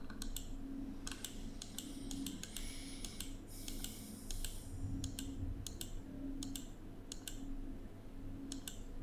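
Computer keyboard keys tapped at an irregular pace, light clicks with a quick flurry in the middle, over a faint steady hum.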